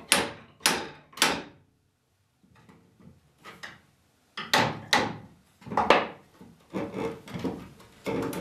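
Sharp wooden knocks from a mallet striking the arm and spindles of a Windsor chair to drive the joints home in a dry fit: three blows about half a second apart, a short pause, then another run of blows, the later ones less sharp.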